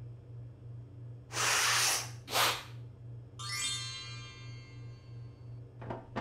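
Cartoon sound effects over a steady low hum: two short bursts of hiss, then a bright sparkling chime that sweeps upward and rings away.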